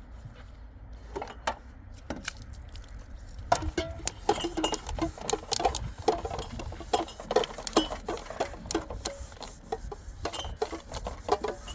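A rapid, irregular run of sharp clicks and knocks from hard objects being handled, starting about a third of the way in after a few isolated knocks.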